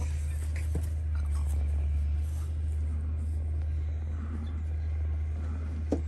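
A steady low hum with a light hiss over it, and a couple of faint knocks, one under a second in and one near the end.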